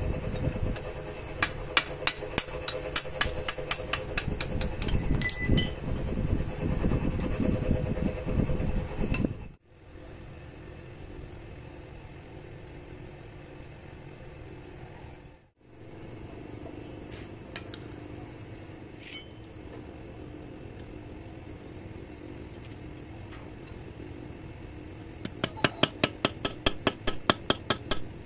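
Quick series of light metal-on-metal hammer taps on a steel rod that drives a used HSS lathe-tool cutter through an aluminium tube, cutting rifling grooves, over a steady low rumble. After a quieter stretch, a fast run of sharp taps, about four a second, starts near the end.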